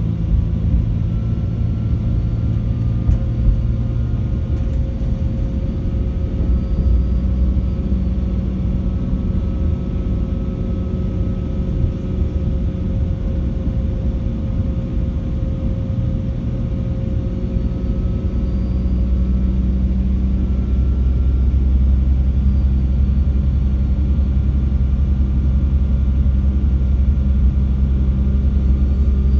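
Class 196 diesel multiple unit's MTU 6H 1800 inline-six diesel engines running steadily, with a faint high whine from the turbocharger above the low drone. About two-thirds of the way through the low drone grows louder and stays up, as the engines take more load.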